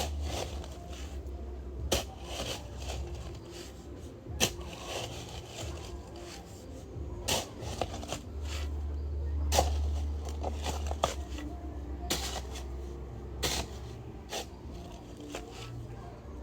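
Scattered knocks and scrapes of hand work with stones and wet cement, one sharp knock every second or two, over a low rumble.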